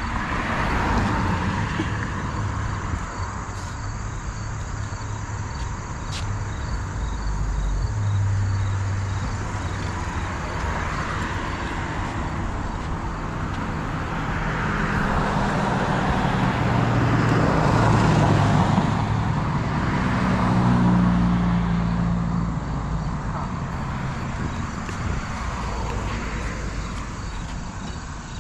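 Road traffic: cars passing one after another on a multi-lane road, each swelling and fading as it goes by, with the loudest passes and some engine hum in the middle.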